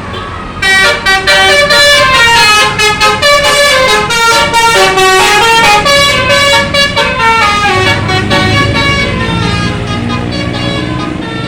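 Telolet bus horn playing a loud tune of quickly changing notes, starting about a second in and stopping about eight seconds in. The bus's engine rumbles on after it.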